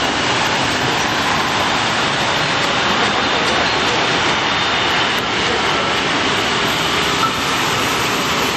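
Steady, even roar of city street traffic, with no single vehicle standing out.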